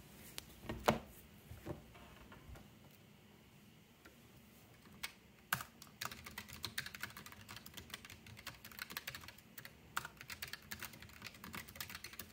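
A few handling knocks as a palm rest is set in place, then typing on a mechanical keyboard from about five seconds in: a fast, uneven run of light key clicks.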